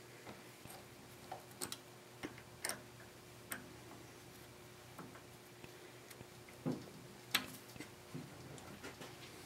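Scattered light metallic clicks and clinks as a hex key and hands work at a snowblower engine's drive pulleys and V-belt, taking the belts off. A faint steady hum runs beneath.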